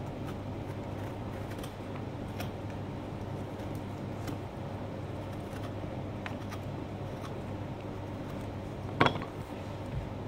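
Faint clicks and scrapes of a small carving tool cutting into pumpkin skin and flesh over a steady low hum, with one sharper click about nine seconds in.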